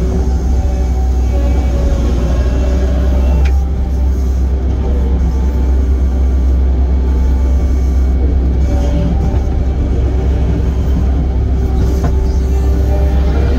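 Link-Belt 145 excavator's diesel engine running steadily under work, a deep continuous rumble heard from the cab, with higher tones coming and going above it as the machine works.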